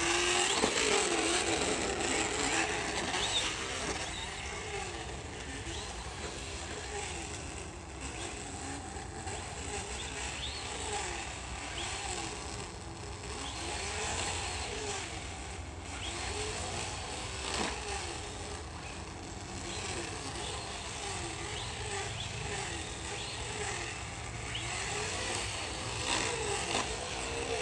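Traxxas Slash RC truck's onboard sound system playing a recorded V8 super-truck engine through small speakers, the engine note rising and falling again and again as the truck is throttled around the track.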